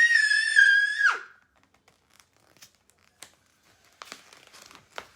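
A child's high, held squeal lasting about a second, then near quiet with a few soft clicks and a faint paper rustle near the end: a book page being handled and turned.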